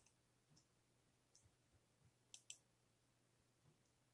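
Faint computer mouse clicks: a few light ticks and a quick double click about two and a half seconds in.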